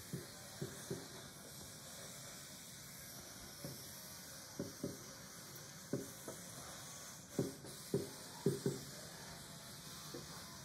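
Distant fireworks going off, heard from indoors through a window as about a dozen dull low thumps at irregular intervals, coming thickest in the second half, over a faint steady hiss.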